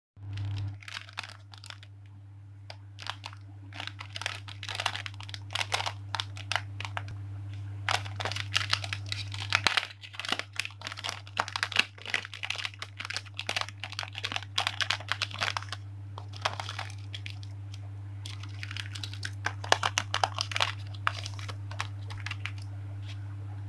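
Clear plastic packaging bags crinkling and rustling as they are handled, in irregular clusters of crackle, over a steady low hum.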